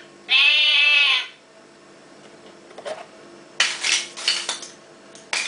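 LeapFrog Fridge Farm toy playing a recorded sheep bleat through its small speaker, about a second long. A few seconds later comes a short run of clicks and rattles as the plastic magnet pieces are handled.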